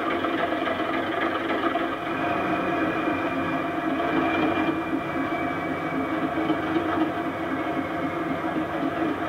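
Sound-fitted OO-gauge Class 37 model playing its recorded English Electric V12 diesel engine sound through a small EM1 speaker with a bass-reflex enclosure, driven by a Loksound Select decoder. The engine runs steadily as the loco creeps forward and comes to a stand. A thin high squeal sounds over the middle and fades away.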